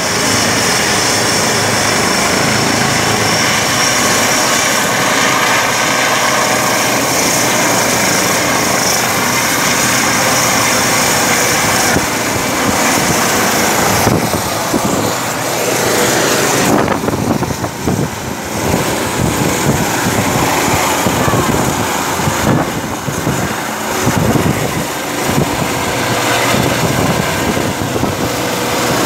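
Eurocopter EC135 twin-turbine helicopter running at full power and lifting off: a steady turbine whine over loud rotor noise. From about halfway through, rotor downwash gusts unevenly against the microphone.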